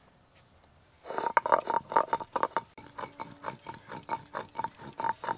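Stone roller grinding whole cumin, fennel seeds and dried red chillies on a carved stone grinding slab (shil-nora), starting about a second in: rapid, rhythmic stone-on-stone scraping strokes.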